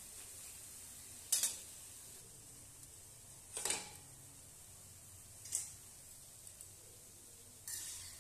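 A perforated metal ladle scraping and clinking against an iron kadai four times while lifting fried boondi out of hot oil, over a faint steady sizzle of the oil.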